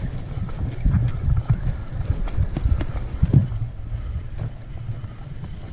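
Wind buffeting the microphone in a steady low rumble, with scattered small clicks and knocks from handling a spinning rod and reel, a slightly louder knock about three and a half seconds in.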